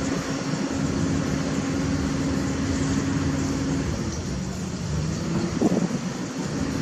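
Diesel engine of a Caterpillar 320D excavator running steadily with a held hum. The hum eases a little after about four seconds, and there is a short louder sound near the end.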